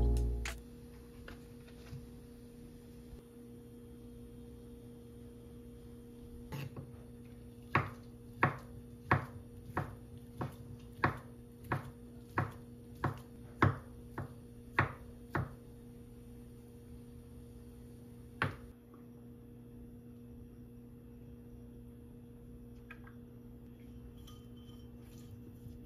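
Chef's knife slicing crab sticks on a wooden cutting board: a steady run of about fourteen sharp knocks, one and a half a second, then one last knock a few seconds later. Faint light scraping near the end as a brush spreads sesame oil in an earthenware pot.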